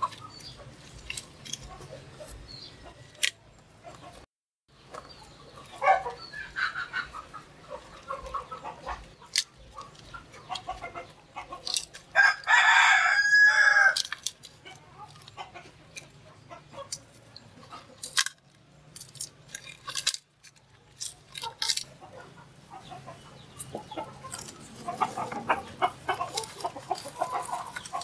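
A rooster crows once about halfway through, a call of about two seconds that is the loudest sound. Chickens cluck at other times. Light clicks and knocks come as plant stalks are laid into an earthenware pot.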